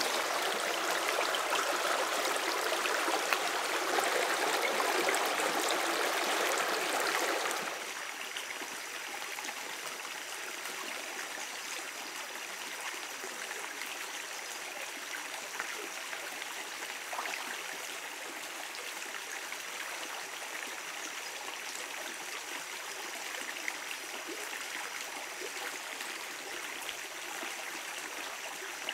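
Shallow stream water rushing and splashing over stones close by, which drops about eight seconds in to a quieter, steady running of the stream.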